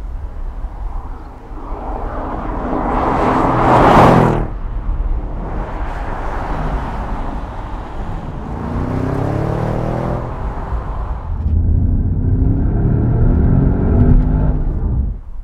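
Audi S7 Sportback's twin-turbo V8 engine under hard driving: the car passes by, loudest about four seconds in and cutting off sharply, then the engine note rises in pitch as the car accelerates, twice.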